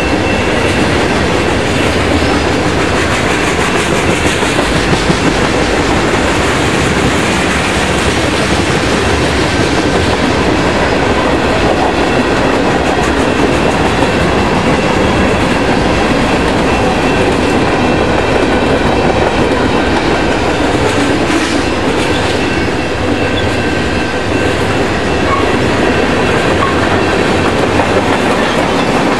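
Freight cars of a passing manifest train rolling by at close range: a loud, steady rumble and clatter of steel wheels on the rails.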